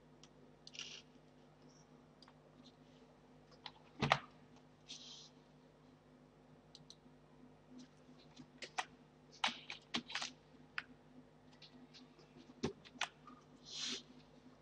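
Computer keyboard keystrokes and clicks, scattered and irregular, as a spreadsheet formula is typed, with a sharper knock about four seconds in and small clusters of taps later on. A faint steady hum sits underneath.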